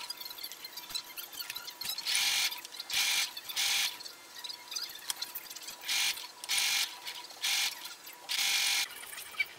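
A Brother HC1850 computerized sewing machine stitching in short spurts, about seven bursts of under a second each with pauses between, as horsehair braid is sewn onto a skirt hem.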